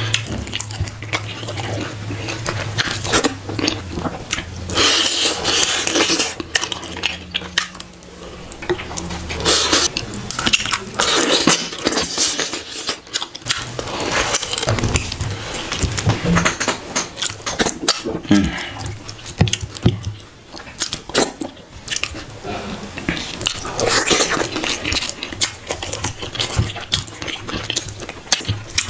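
Close-up eating sounds: a man chewing mouthfuls of pounded dough and soup that he eats with his fingers, in irregular wet, smacking bursts. A low steady hum lies under the first several seconds.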